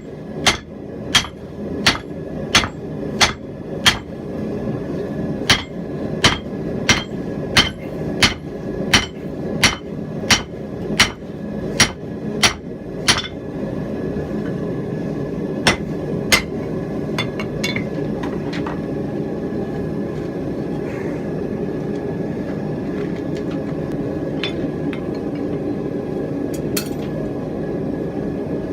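Hand hammer blows on hot steel over the anvil, about one and a half a second, shaping the cheeks of a rounding hammer head forged around a drift. The blows stop about halfway, with a couple more and some light taps after, leaving a steady rushing noise underneath.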